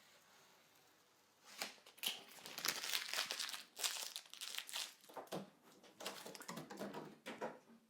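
Thin protective plastic film being peeled off the coffee machine's top plate and scrunched up: irregular crinkling and tearing that starts about a second and a half in and comes in uneven bursts.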